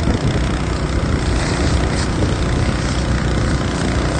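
Steady, loud low rumble of a running engine-driven water pump, with the hiss of a fire hose stream spraying water onto a burning structure.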